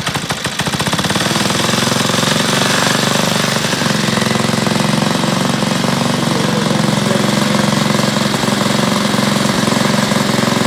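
The small air-cooled gasoline engine of a 1956 Doepke Super Yardbird ride-on train catching right after a pull-start, building up over about a second, then running steadily at idle.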